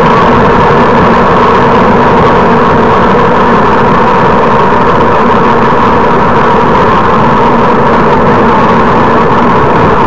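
Car engine running steadily at low speed with road noise, heard from inside the car's cabin: a constant, even hum.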